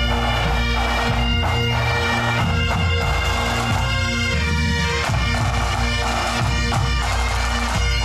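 Pipe band playing: Great Highland bagpipes with their steady drones held under the chanter melody, and drums beating along.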